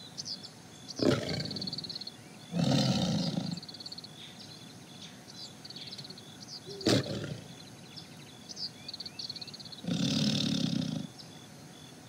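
Tiger growl sound effect, twice, each about a second long and some seven seconds apart, with a sharp click between them and faint high chirping behind.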